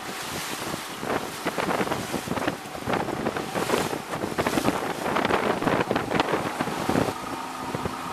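Wind buffeting the microphone and water rushing past a moving open tour boat, in uneven gusts. About seven seconds in, it gives way to a steadier, evenly pitched motor hum.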